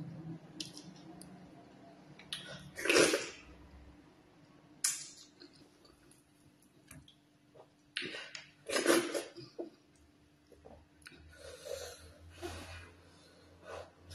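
Close-up wet mouth sounds of eating ogbono soup and fufu by hand: chewing and slurping in several short bursts, the loudest about three seconds in and again around nine seconds in.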